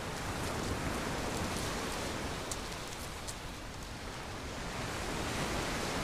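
Steady noise of Black Sea waves breaking and washing over a pebble beach.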